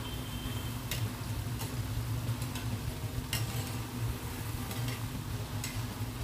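Guna dough pieces sizzling steadily as they deep-fry in hot ghee in a kadhai, with a few sharp clicks of a spoon stirring them against the pan. A steady low hum runs underneath.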